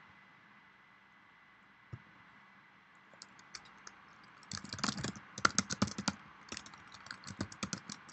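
Typing on a computer keyboard: after a single click near two seconds, a quick run of key clicks starts about four and a half seconds in and carries on in short bursts.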